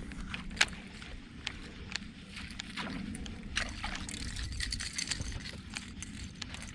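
Water sloshing around a small boat over a low steady rumble, with scattered sharp clicks and knocks.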